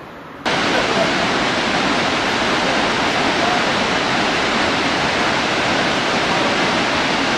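Snoqualmie Falls, a large waterfall, giving a steady, even rush of falling water that cuts in abruptly about half a second in.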